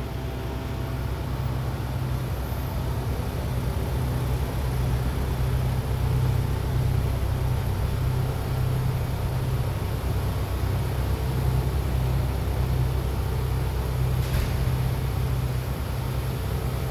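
2024 Land Rover Discovery running, a steady low rumble and hum of engine and vehicle noise with no clear brake squeal standing out.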